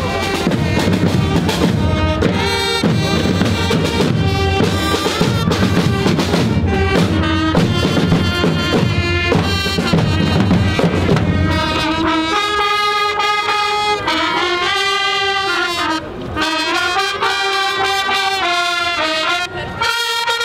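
Marching band music: drums and brass playing together, then from about twelve seconds in the brass carries a melody of held notes with little drumming.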